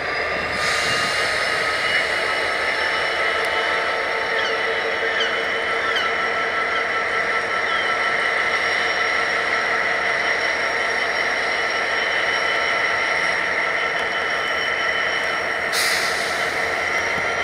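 GB Railfreight Class 69 diesel locomotive, with its EMD 710 engine, running as it creeps in at low speed, with steady high-pitched whining tones, some slowly rising in pitch. A short hiss sounds near the end.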